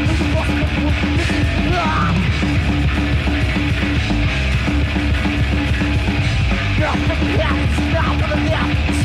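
Death metal band playing live: loud, dense, unbroken music.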